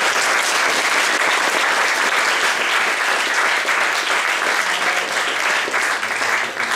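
An audience applauding, a dense steady clapping that holds at one level throughout.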